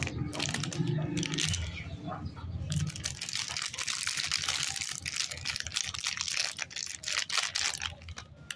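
Plastic chocolate-lolly wrapper crinkling and crackling as hands tear it open and pull out the foil-wrapped bar, a dense run of sharp crackles that is densest in the second half.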